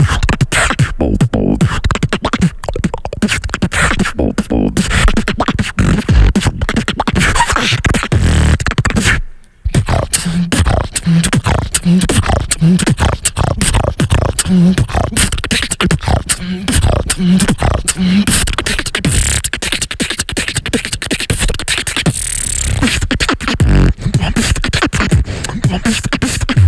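Beatboxing into a handheld microphone: fast, dense percussive mouth sounds with short low hummed bass notes. The sound breaks off for a moment about nine seconds in, and the beatboxers take turns.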